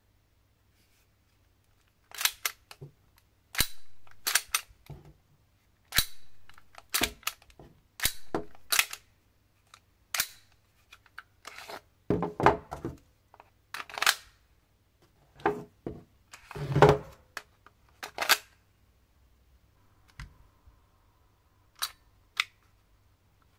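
A run of sharp plastic-and-metal clicks and clacks from a tan SIG Sauer P320 M17 gas blowback airsoft pistol and its magazines being handled, with a magazine worked in and out of the grip. The clicks come thick for most of the stretch, with the heaviest clacks about halfway through, then thin out to a few near the end.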